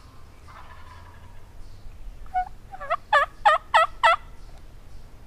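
Turkey calling: a quick series of about seven loud notes, roughly three a second, growing louder over two seconds, starting a little past the middle.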